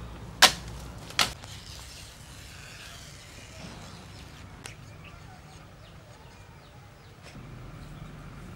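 Two sharp snaps about a second apart as a dry coconut frond is pulled down and broken, then faint handling of coconut leaf with a few small clicks.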